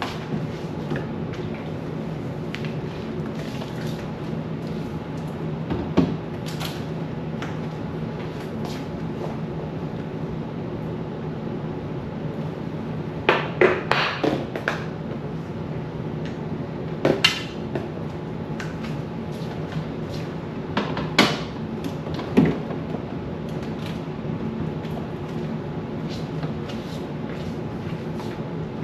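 Scattered knocks and clatters of containers and dishes being moved and set down while a refrigerator is emptied and wiped out, over a steady low hum. There is a single knock about six seconds in, a cluster of clatters around the middle, and a few more later.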